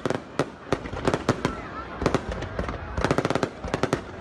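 Fireworks going off: an irregular run of sharp bangs and cracks, coming thick and fast about three seconds in, with faint voices underneath.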